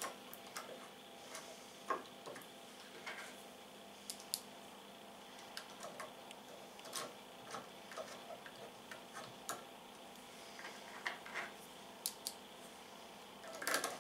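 Faint, irregular clicks and ticks of a 4 mm T-handle Allen wrench engaging and turning the screws that fasten a stepper motor to a metal plate, over a faint steady hum.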